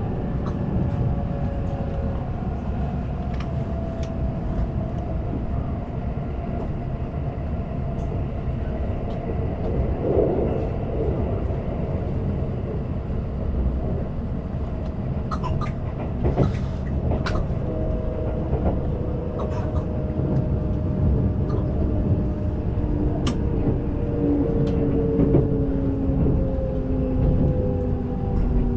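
A Kintetsu electric train running, heard from inside the carriage: a steady low rumble of wheels on rails with a faint whine whose pitch slides slowly and falls near the end, and a few scattered sharp clicks.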